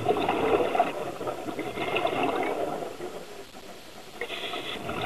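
Scuba diver's exhaled bubbles rushing from a regulator, heard underwater: a long burst of bubbling, a quieter pause about three seconds in, then another burst near the end.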